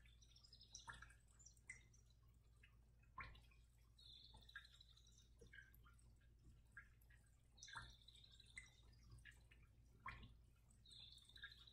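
Near silence: room tone with a faint low hum, a few faint scattered clicks and three short high chirps.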